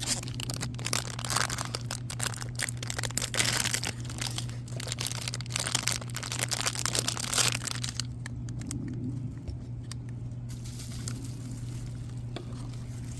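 Plastic toy packaging being crinkled and torn open by hand, a dense run of irregular crackles for about eight seconds, then quieter rustling.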